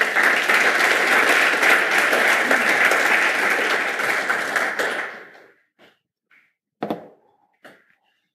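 Audience applauding, dying away after about five seconds, followed by a few scattered knocks.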